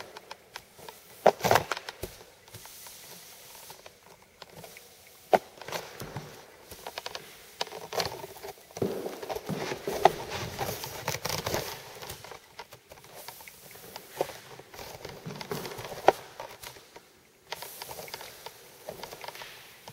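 A T-bar applicator dragging and spreading wet floor finish across a wood floor. It makes soft swishes with scattered, irregular clicks and taps.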